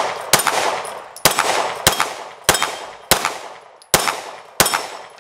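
Glock 19 9mm pistol fired semi-automatically inside a Recover Tactical P-IX carbine kit: seven shots at a steady pace, about one every two-thirds of a second, each followed by a fading tail.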